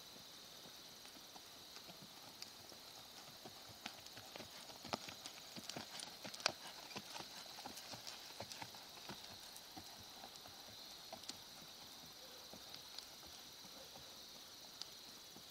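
Hoofbeats of a ridden palomino gelding moving over arena sand, a run of soft, quick knocks that grows louder in the middle as the horse passes close, with one sharp knock a little past the middle, then fades as it moves away.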